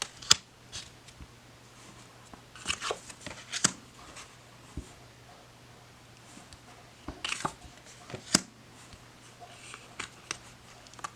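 Laminated tarot cards being handled: scattered sharp taps and short slides of card on card, coming in a few small clusters.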